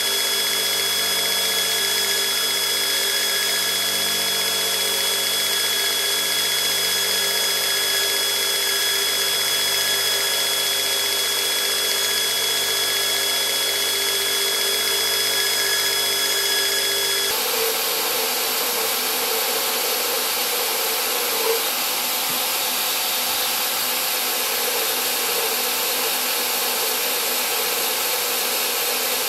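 Belt grinder running with a steady whine while a small sheet-metal scabbard fitting is held to the belt. About 17 seconds in, the sound changes abruptly to a second belt grinder with a broader, hissing grind.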